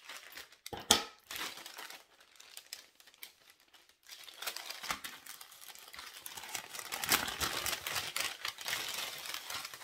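A sharp knock about a second in, then packaging crinkling and rustling continuously from about halfway through as items are unwrapped by hand.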